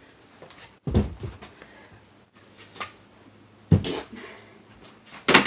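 A carpetboard (skateboard deck without trucks) and feet thudding on carpet during trick attempts: three heavy thuds, about 1 s, 3.7 s and 5.3 s in, with a lighter knock between.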